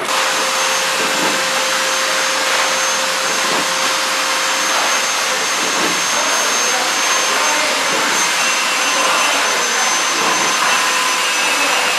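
Horizontal flow-wrap packing machine running: a loud, steady mechanical whir and hiss with a faint constant whine.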